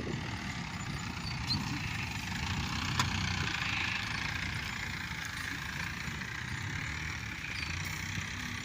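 Excavator engine running steadily at a low, even hum, with a single sharp click about three seconds in.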